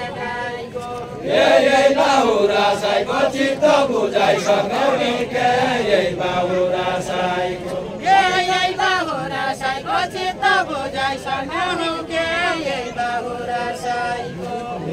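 A group of voices singing a Deuda folk song together in a chant-like tune. The singing swells about a second in, and a new line begins around eight seconds in.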